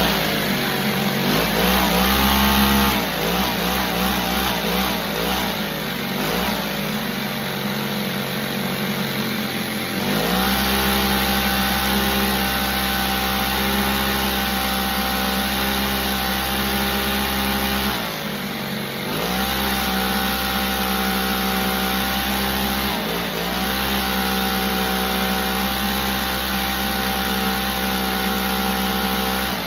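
Truck engine running and revving. Its pitch climbs about two seconds in, eases off, then rises again around ten seconds in and holds a steady high note. It drops briefly near eighteen seconds and again around twenty-three seconds, coming straight back up each time.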